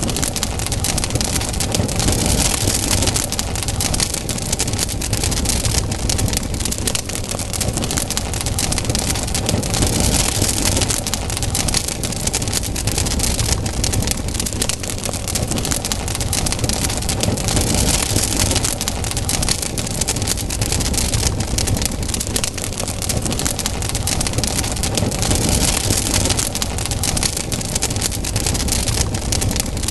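Campfire burning: dense, continuous crackling and popping over a steady hiss and low rumble of the flames, the hiss swelling briefly about every eight seconds.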